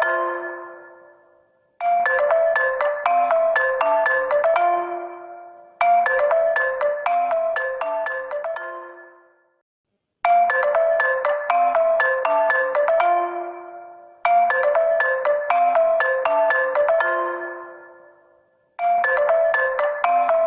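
HONOR phone ringtone: a short melody of bright struck notes that loops about every four seconds, each phrase ending on a lower held note and fading out before the next begins.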